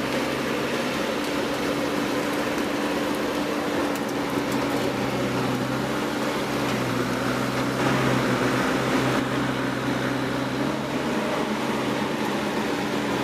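A machine's motor running steadily, a constant low hum over a noisy drone, briefly a little louder about eight seconds in.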